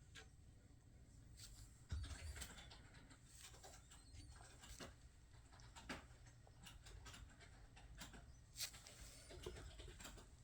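Khao Manee kitten scrambling on a cat tree: faint scattered taps and scratches of paws and claws, with a soft thump about two seconds in.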